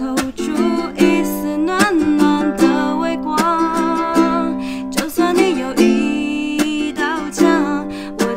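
A woman singing the chorus of a Mandarin pop song while strumming a ukulele in a steady rhythm, the chords moving from F to C to G7.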